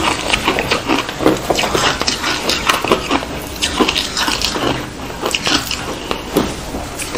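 Close-up crunching of matcha-powdered ice being bitten and chewed: rapid, irregular crunches, overlapping from more than one eater.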